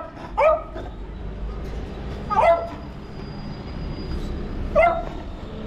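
A beagle barking: four short, high barks spaced a second or two apart.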